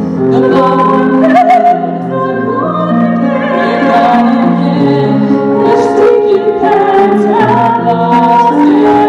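Small mixed group of voices singing a slow song in harmony. Held chords shift every second or so, with a woman's voice on top, wavering in vibrato.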